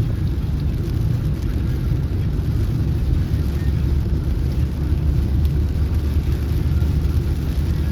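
Steady low rumble of a car driving along, heard from inside the cabin: engine and tyre noise.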